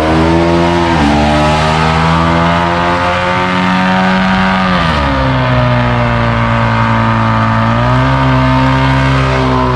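A car engine held at high revs, its pitch stepping up about a second in, dropping about halfway and climbing again near the end, with a steady hiss underneath.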